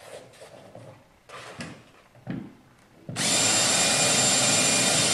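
Electric drill with a 3/16-inch bit boring a bolt hole through the top rail of a boat's cockpit. A few light handling clicks come first; about three seconds in, the drill starts and runs at a steady full speed.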